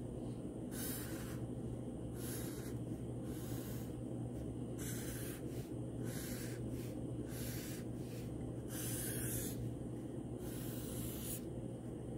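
Sharpie permanent marker drawn across paper: about ten short scratchy strokes, each under a second, as lines are outlined, over a steady low hum.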